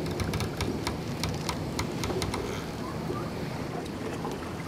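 Small motorboat under way: a low steady engine rumble with water rushing and splashing along the hull, and scattered small clicks of spray or handling.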